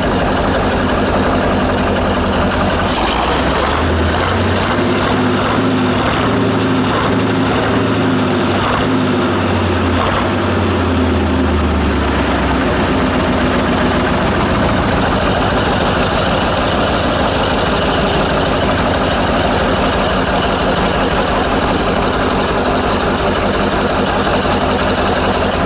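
1948 Buda 8-DC-1125 straight-eight diesel running steadily, its low note changing for a stretch between about three and twelve seconds in before settling again.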